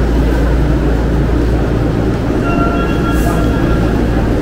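Tokyo Metro Ginza Line subway train at an underground platform, giving a steady, loud low rumble. A few brief high steady tones sound about two and a half seconds in.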